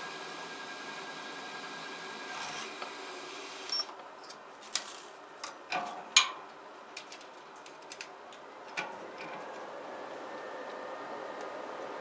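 Small benchtop metal milling machine running while a number 7 drill bores through a brass piece, then a run of sharp clicks and knocks about four seconds in, after which the mill runs steadily again.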